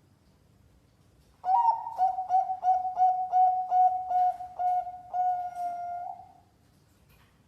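Zebra dove (perkutut) cooing: a quick run of about a dozen short coos starting about a second and a half in, closing with one longer, drawn-out coo near six seconds.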